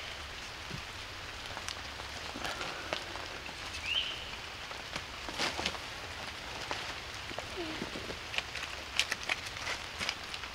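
Steady rain falling, with scattered sharper drop ticks. A brief high chirp about four seconds in.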